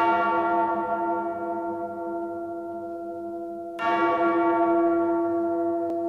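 A deep bell struck twice, about four seconds apart, each stroke ringing on with several steady tones and slowly fading.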